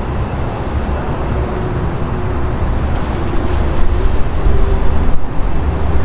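Wind buffeting a clip-on lapel microphone: a loud, low, rumbling noise that grows stronger over the last couple of seconds.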